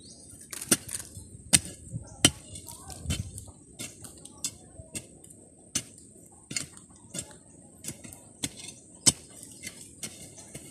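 Hand digging with a narrow pointed tool in a hole of hard, stony soil: irregular sharp strikes and scrapes, about one or two a second, with a steady high insect drone behind.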